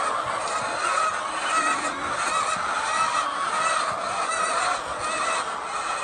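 A flock of white laying hens in a shed calling all at once: a steady, dense clamour of many overlapping hen calls.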